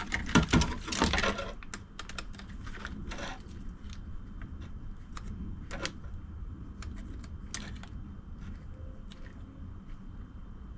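Light clicking and clattering of small metal hand tools being handled, busy for about the first second and a half, then scattered single clicks.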